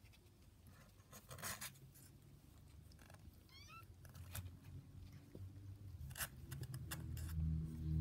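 Cats curled up together purring: a steady low purr that grows louder toward the end, with a few rustles of the newspaper under them as they shift.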